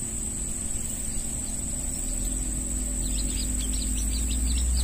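A steady, high insect drone of crickets runs throughout. From about three seconds in, small birds add a quick run of short, falling chirps. A low rumble swells underneath from about two seconds in.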